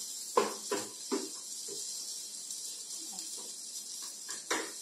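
Wooden spatula knocking and scraping against a nonstick frying pan while stir-frying potato cubes: several short irregular knocks, the loudest about half a second in and near the end, over a steady high hiss.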